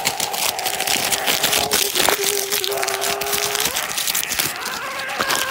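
Crinkling plastic toy packaging and clicking handling noise close to the microphone, with a steady held hum from about a second in to nearly four seconds in.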